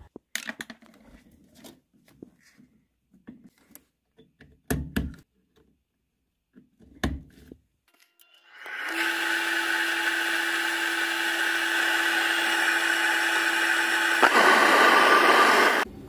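A few scattered clicks and knocks, then about halfway through a Rheem two-stage gas furnace starts up. Its motor comes on and runs steadily with a hum and a whoosh, the furnace starting normally on a new pressure switch. Near the end there is a click and the sound shifts as the furnace settles into low fire.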